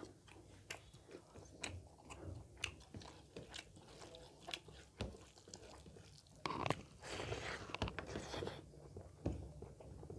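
Close-miked chewing of a mouthful of rice and pork gravy, with many short wet mouth clicks and smacks. About six and a half seconds in comes a louder, noisier stretch of about two seconds.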